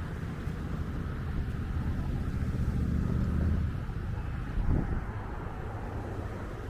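City street traffic: a motor vehicle passing by, its low rumble building to a peak about three and a half seconds in and then fading, with a short louder bump just before five seconds.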